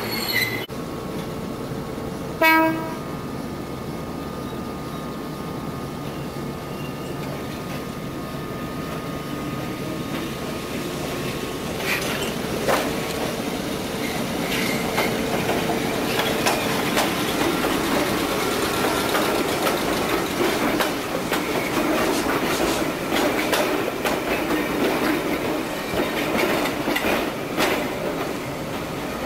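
A short horn blast about two and a half seconds in, then a former Nankai 21000-series electric train running into the station. Its wheels click over the rail joints, getting louder and busier as it comes near.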